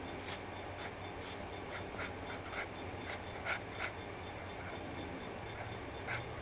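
Graphite pencil scratching on paper in short, irregular sketching strokes, a few of them louder and sharper about halfway through and near the end.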